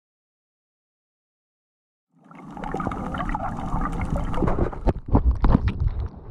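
Silence for about two seconds, then muffled water noise from a camera in the water fades in, with bubbling, wavering tones and irregular knocks.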